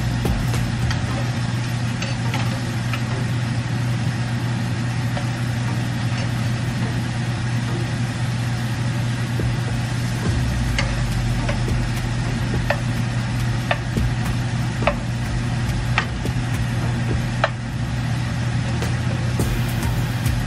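Shrimp frying in a pan: a steady sizzle over a constant low hum, with a handful of sharp taps of a utensil against the pan in the second half.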